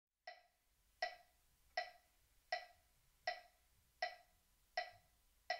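Metronome ticking a steady count-in: eight evenly spaced clicks about three quarters of a second apart, roughly 80 beats a minute, the first one softer.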